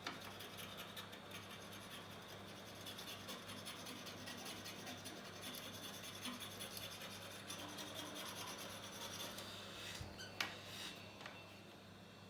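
A blade scraping glue and glass residue off an iPhone 8 Plus's aluminium housing in quick repeated strokes while the housing is prepped for new rear glass. The scraping stops near the end, just after a sharp click.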